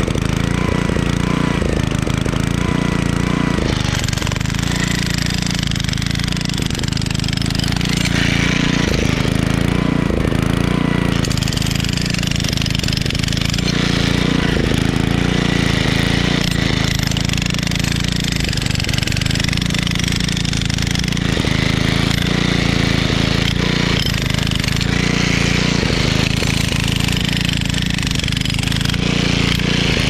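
Toolman LT5105 14-amp electric jackhammer running continuously, its chisel hammering into a rebar-reinforced concrete foundation. A portable generator engine runs under load beneath the hammering.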